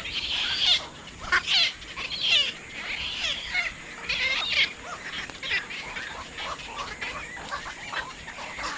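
Many birds calling over one another, a dense chatter of short, overlapping, gliding calls. It is busiest and loudest in the first half and thins out after about five seconds.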